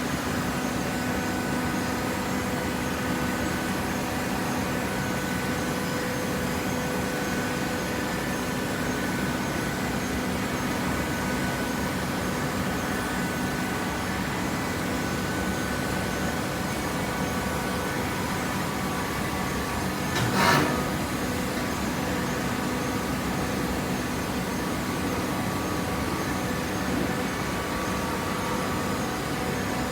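Hydraulic baler's power unit running with a steady machine hum, and a single loud clank about two-thirds of the way through.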